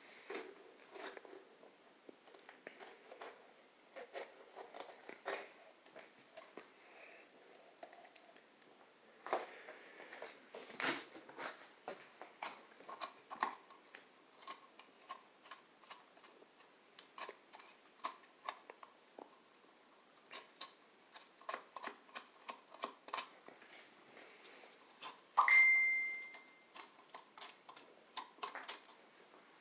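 A knife cutting and coring raw bell peppers: an irregular run of small crisp crunches, snaps and clicks. About 25 seconds in, a brief high-pitched tone with a sharp start stands out as the loudest sound.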